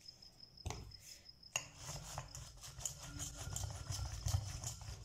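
A single knock under a second in. Then a battery handheld milk frother is switched on about a second and a half in, whirring as its wire whisk beats egg with chopped vegetables in a glass bowl, with a rapid rattle of small clicks.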